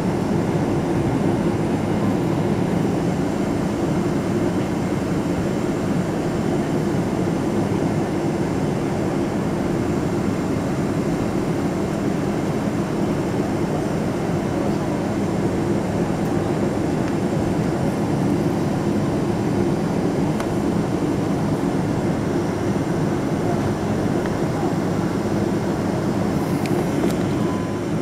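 Steady drone of a Boeing 777-200ER heard from inside the passenger cabin while the airliner taxis before take-off.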